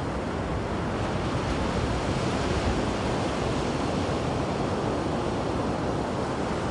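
Ocean surf washing and breaking against rocks in a steady roar of rushing water that swells slightly a couple of seconds in, with some wind on the microphone.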